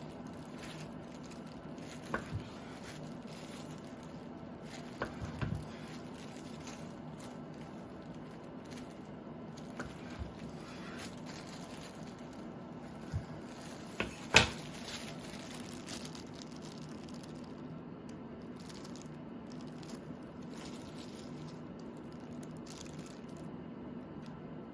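Chef's knife slicing raw duck breast on a wooden cutting board: soft wet squishing of plastic-gloved hands on the meat, with a few sharp knocks of the blade on the board, the loudest about two-thirds of the way through, over a steady low hum.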